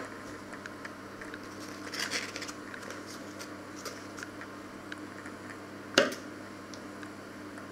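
A kitchen knife cutting into a block of butter, its foil-and-paper wrapper crinkling about two seconds in, with small ticks and one sharp knock about six seconds in.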